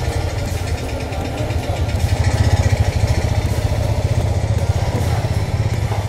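Motorcycle engines idling close by, a steady low exhaust beat that pulses quickly.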